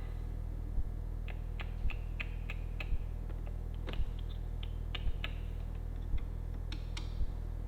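Scattered small clicks and taps of hand tools and screws being worked under a car dashboard, with several in quick succession between about one and five seconds in and a couple more near the end. Underneath runs a steady low hum with a soft thump about once a second.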